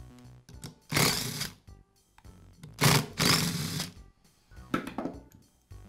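Cordless screwdriver running in several short bursts of under a second each as it backs out the screws that hold the cylinder head to an air compressor pump, with soft background music.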